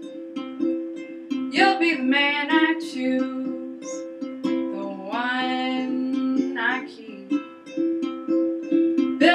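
Piano accordion holding steady chords under a strummed ukulele, in an instrumental break, with a harmonica on a neck rack playing a few short phrases over them.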